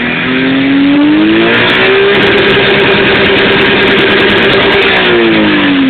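Tuned Mitsubishi FTO MIVEC 2.0-litre V6 free-revving: the revs climb past 5,000 rpm, are held steady at about 8,000 rpm near the red line for about three seconds, then fall away near the end.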